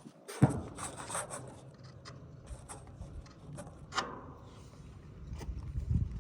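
Scraping, rubbing and sharp knocks of a flat shingle bar working under asphalt roof shingles to loosen a damaged shingle for removal. The loudest knock comes about half a second in, with another a few seconds later.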